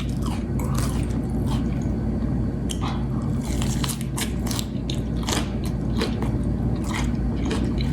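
Close-miked chewing and crunching of a mouthful of salad, with many short wet mouth clicks and crunches.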